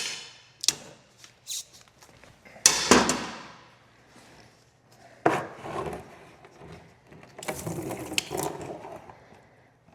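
Clanks and knocks of parts and hand tools being handled: several sharp knocks, a loud clank that rings on for about a second near the three-second mark, another clank about five seconds in, and a rattle near the end.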